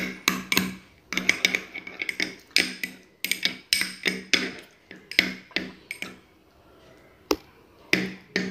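Metal spoon clinking against a small glass bowl while stirring papaya paste with curd, about three clinks a second with a ringing tone. The clinks stop about six seconds in; one sharp click follows, then a few more clinks near the end.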